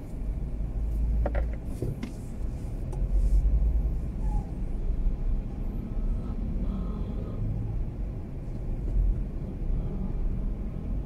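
Car driving in traffic: a steady low rumble of road and engine noise, with a couple of short knocks about one and two seconds in.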